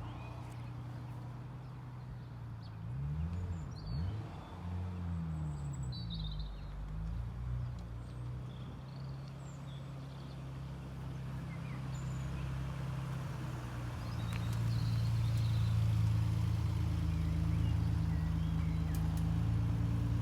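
Nissan Skyline R32 GT-R's RB26 twin-turbo straight-six idling steadily, its pitch rising and falling a few times about three to seven seconds in, then running louder from about two-thirds of the way through. Birds chirp faintly.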